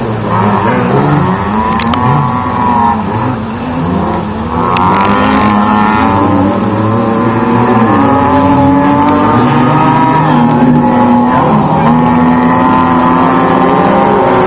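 Off-road race trucks and buggies revving hard, several engines at once, their pitch climbing as they accelerate away, then holding a steadier high note through the second half.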